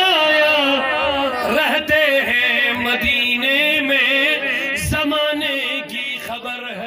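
A man's voice chanting a line of Urdu devotional verse in a drawn-out, melodic style into a microphone, holding long wavering notes, growing quieter near the end.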